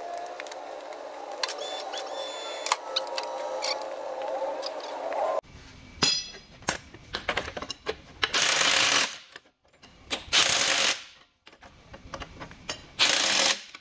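For the first five seconds, sped-up, pitched-up shop noise of the axle being worked into place, with small metallic clinks. Then a cordless impact wrench fires three short bursts about two seconds apart, running in the axle mount bolts before they are torqued.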